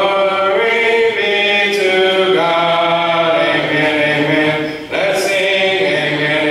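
Church congregation singing a hymn a cappella under a song leader. Voices without instruments hold notes and step from pitch to pitch, with a short break for breath about five seconds in.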